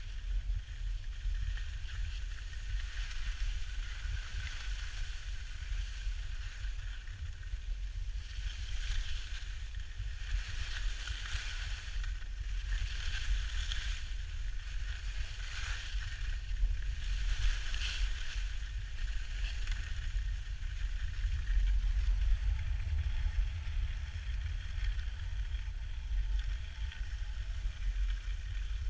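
Skis scraping and hissing over packed snow, louder in surges, with a steady low rumble of wind buffeting the action camera's microphone.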